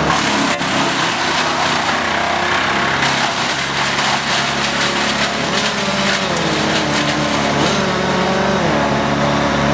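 Small engine running, its pitch rising and falling, with a few sharp ticks over it.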